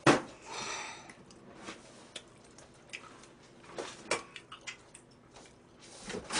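A sharp knock right at the start, then about half a second of rustling as someone gets up from a gaming chair, followed by scattered light knocks and footsteps as she walks away across the room.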